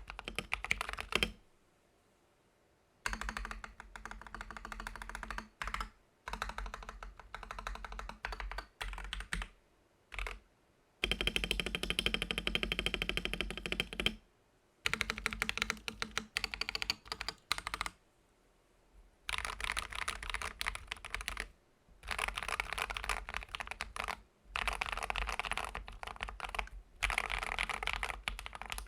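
Keystrokes on a Gamakay LK67 (TM680) mechanical keyboard with lubed, filmed AKKO CS Ocean Blue tactile switches, XDA keycaps, case foam and a tape mod, in runs of rapid clacks separated by short pauses. The stabilised modifier keys are pressed first, then, in the later part, blocks of home-row keys pressed together.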